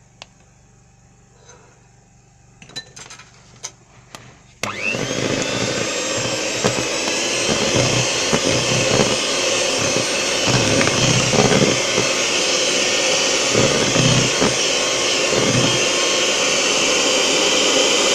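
A few light knocks and clinks, then about four and a half seconds in an electric hand mixer switches on with a brief rising whine and runs steadily, its beaters whisking thick egg-yolk sponge batter in a plastic bowl.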